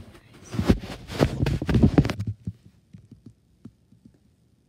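Thumps and rubbing from a phone being handled, its microphone picking up the knocks and friction for about two seconds, then only a few faint ticks.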